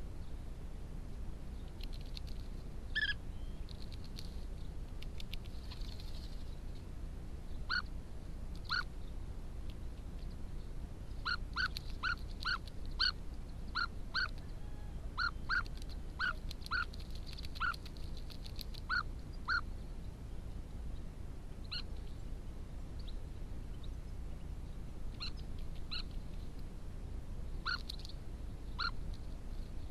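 European bee-eaters calling: short, sharp calls, scattered at first, then a quick run of about two a second in the middle, then sparser again.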